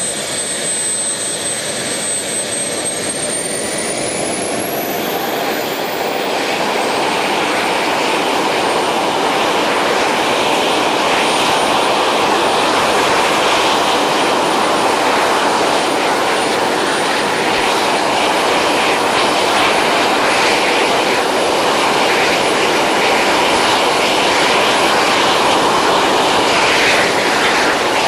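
Model jet turbine spooling up. Its thin high whine climbs steeply in pitch a few seconds in, while the rushing exhaust grows louder. It then runs steadily at high speed.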